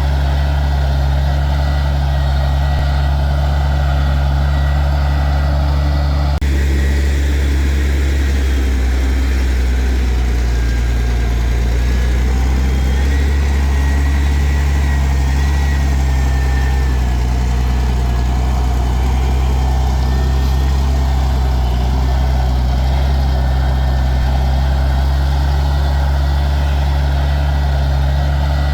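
Diesel engine of heavy earthmoving equipment running steadily with a deep, even drone. The higher part of the sound changes abruptly about six seconds in, while the low engine note carries on.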